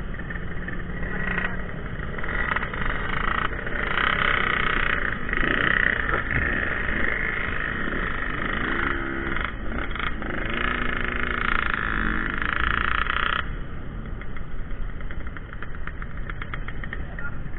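Yamaha RX King single-cylinder two-stroke motorcycle engines running at idle with a rattly, crackling sound, rising and falling in pitch a few times in the middle.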